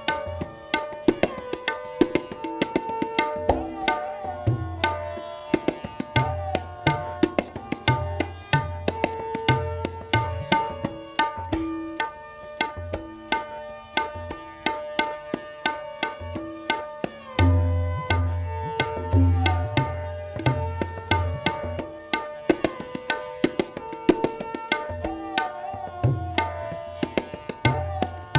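Tabla solo in teentaal: quick, crisp strokes on the treble drum and deep bass strokes on the bayan that bend in pitch. Under it a sarangi plays the repeating lehra melody that keeps the cycle.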